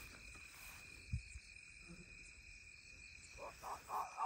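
Faint, steady high chirring of night insects, with a single low thump about a second in. Near the end, a run of short, louder pitched calls begins.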